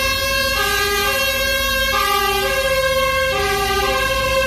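Fire engine's two-tone siren, alternating between a high and a low note, each held for under a second, over a low engine and traffic rumble.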